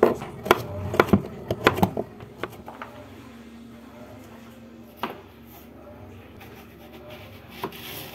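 Kitchen knife chopping zucchini into thin strips on a plastic cutting board: about six sharp strokes in the first two seconds. After that, quieter handling with a couple of single knocks.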